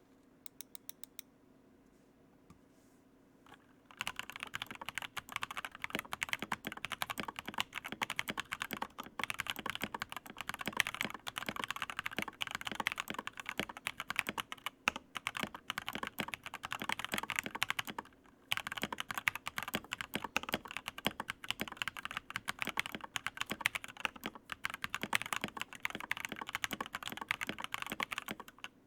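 Fast continuous typing on a custom mechanical keyboard with pre-lubed Kailh Novelty Cream linear switches, a clacky, somewhat hollow sound. A few light clicks at first, then dense typing from about four seconds in, with a brief pause just past the middle.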